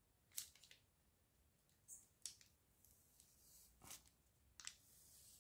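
Faint, scattered small crinkles and ticks of a paper label being peeled off a phone battery by hand, about five in all, with near silence between them.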